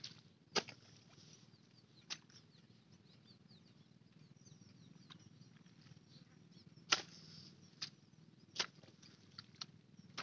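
Hand hoe chopping into the wet mud and straw of a paddy-field bund: about half a dozen sharp, irregularly spaced strikes, a few of them followed by a brief scraping hiss as the blade is dragged back.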